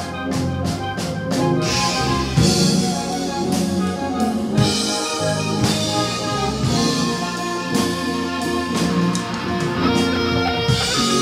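Music with guitar and drums playing a steady beat.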